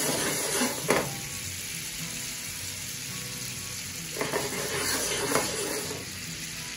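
Cubed salted butter sizzling and bubbling as it melts in a nonstick skillet over a gas flame, the first stage of browning butter. There are brief louder moments about a second in and again after about four seconds.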